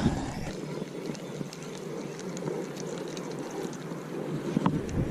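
Creek water running and rippling in a steady rush, with some wind buffeting the microphone at the start and end, and one short click near the end.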